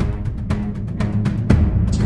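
Dramatic background music with a steady drum beat, about four hits a second, over a low sustained tone.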